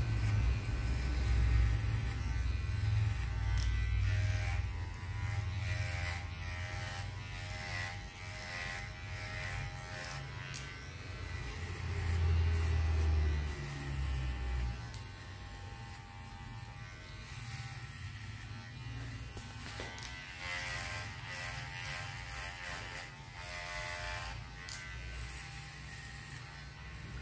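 Electric hair clipper buzzing steadily as it cuts short hair at the back and sides of the head, louder in the first half.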